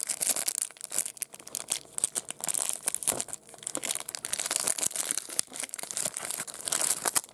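Trading card pack wrapper being torn open and crinkled by hand, with irregular crackling throughout.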